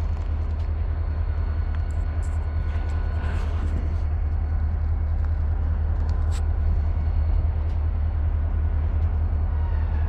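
A heavy engine running steadily, a deep, even rumble with a few faint ticks over it.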